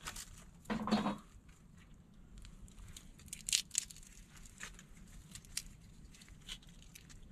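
Soft crinkling and tearing from hands working something small, with scattered sharp crackles. A short, louder rustle about a second in.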